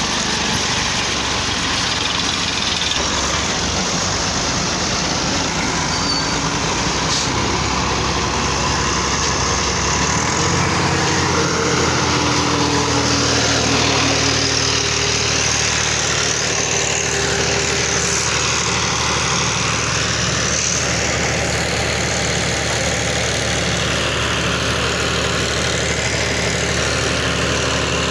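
Massey Ferguson tractor's diesel engine running steadily, its revs rising about ten seconds in.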